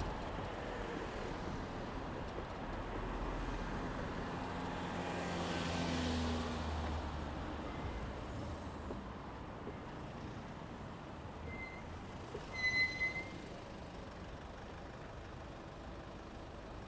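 Steady urban road traffic. A vehicle engine swells past about five to seven seconds in, and a short, high squeal sounds twice around twelve to thirteen seconds in, the loudest moment.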